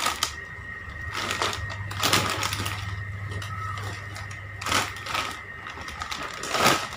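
Crinkly plastic potato-chip bags being handled and lifted out of a cardboard box, in a few short crackling rustles.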